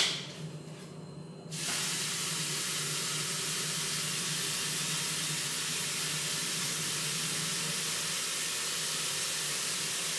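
Kitchen tap turned on about a second and a half in, water running steadily as a vessel is filled with water to be heated.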